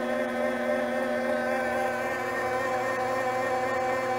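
Grizzly G0765 mini-lathe running steadily at about 205 rpm, its motor and drive giving an even whine made of several steady tones.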